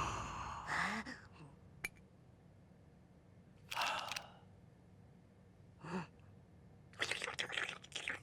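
Sparse cartoon sound effects and short non-verbal character sounds: a brief rising squeak, a sharp click, breathy gasp-like bursts, and a quick run of noisy hits near the end, after background music fades out at the start.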